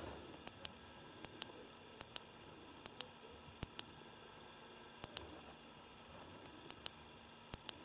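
Push-button switch on a Fenix HP40F headlamp clicking as it is pressed over and over to step through its light modes. There are eight double clicks, a press and a release each, roughly one a second with a short pause near the middle.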